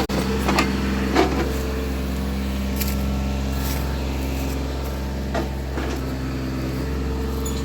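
A B-26's twin Pratt & Whitney R-2800 radial engines running steadily, with a few short knocks in the first second and a half and another about five and a half seconds in.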